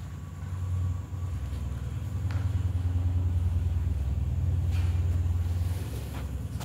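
A steady low rumble that swells about two seconds in and eases off near the end, with a few faint clicks.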